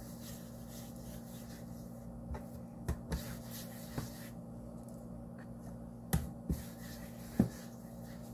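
A hand rubbing vegetable shortening over a bamboo cutting board, with about seven light taps and pats of the palm on the wood, the sharpest a little after six seconds in and near the end. A steady low hum runs underneath.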